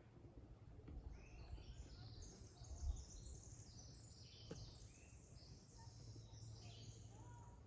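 A small songbird singing a long, rapid run of high notes over a faint low rumble, with a single sharp click about four and a half seconds in.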